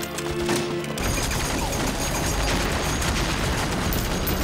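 Film battle soundtrack: rapid gunfire under a dramatic music score. About a second in, it thickens into a dense, continuous din of shots and blasts.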